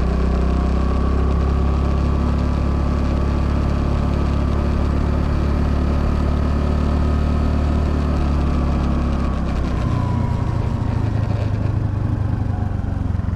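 Honda Navi's 109 cc single-cylinder four-stroke engine running steadily while the scooter rides along, with the engine note dropping about ten seconds in.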